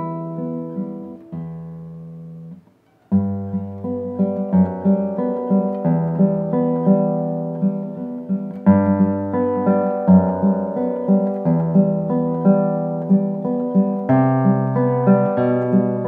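Classical guitar played fingerstyle: a slow piece of plucked, arpeggiated notes over held bass notes. The playing stops briefly about two and a half seconds in, then resumes and runs on.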